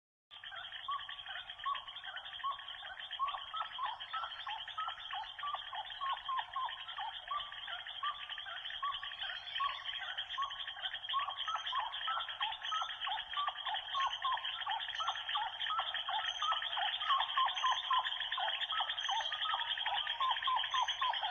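A dense, steady chorus of short, overlapping animal calls repeating several times a second, over a faint low hum; it starts abruptly out of silence.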